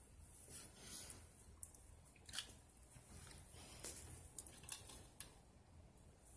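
Near silence with faint scattered clicks and rustles.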